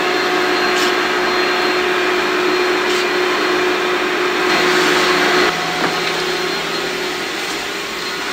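Steady whirring machine noise with a constant hum, a little louder for about a second midway.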